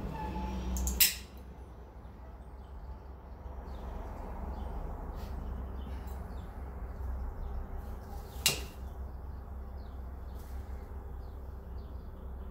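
Hand-held mosaic tile nippers cutting small tiles: two sharp snaps, about a second in and again near the two-thirds mark.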